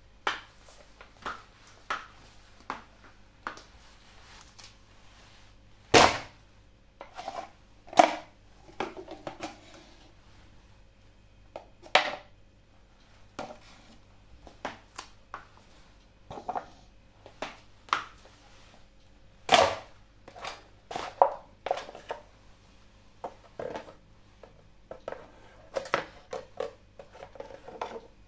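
Steel stiletto heels knocking and clicking on a ceramic tile floor while a cardboard ice-cream cup is stepped on and crushed, its walls crackling and buckling under the shoe. A string of sharp knocks, the loudest about six, eight, twelve and twenty seconds in.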